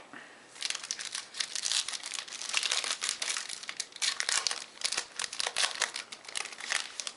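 Foil trading-card pack wrapper crinkling and crackling as it is handled and torn open, a dense run of crackles starting about half a second in.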